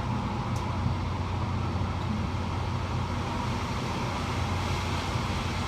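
Hurricane-force wind blowing steadily: a dense, even rush of noise with a heavy low end.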